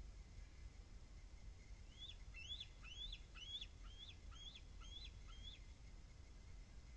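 Bald eagle calling: a faint run of about eight high, piping notes, roughly two a second, beginning about two seconds in.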